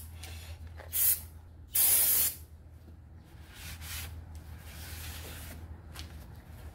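Aerosol brake and parts cleaner sprayed onto a new front brake rotor in two short hissing bursts, a brief one about a second in and a longer one just after. This is followed by softer rubbing as the rotor is wiped down with a rag.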